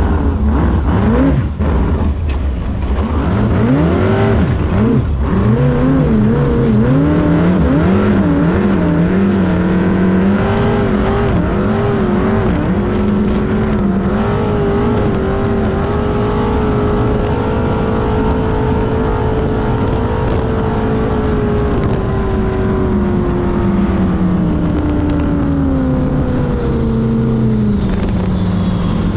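468 cubic-inch big-block Chevy V8 with open exhaust headers, running hard in a V-drive Sanger hot boat under way on the water, with wind and water rushing. The engine note wavers up and down for the first dozen seconds, holds steady, then drops steadily over the last several seconds as the boat comes off the throttle.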